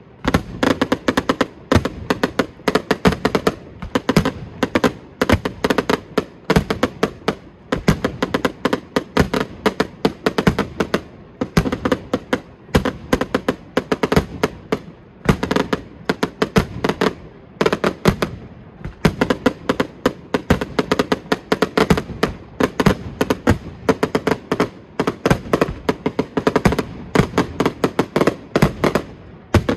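Fireworks display: a dense, continuous barrage of bangs, several a second, with only brief lulls.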